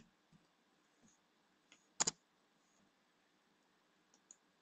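Faint clicks of a computer keyboard and mouse while a copied web address is pasted into a form field: a sharp double click about two seconds in and a few light ticks.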